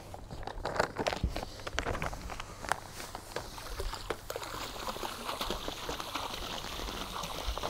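Pool salt being sprinkled by hand from a 40-pound bag into pool water: scattered crunches and taps, giving way about halfway through to a steadier rush of grains pouring.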